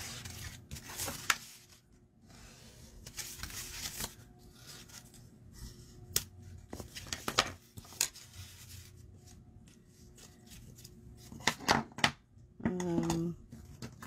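Bone folder rubbing along folded cardstock to crisp the creases: scraping strokes of tool on paper, with a few sharp clicks and taps of the card and tool against the table.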